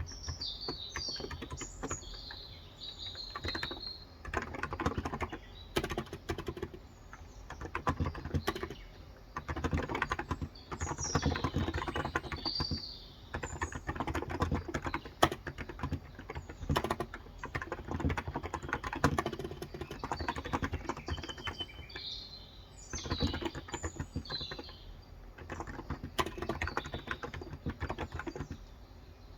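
Typing on a Cox Endeavor tenkeyless keyboard with 35 g electrostatic capacitive (contactless) switches: runs of fast keystrokes broken by short pauses. Birds chirp in the background at the start, about halfway through and again near the end.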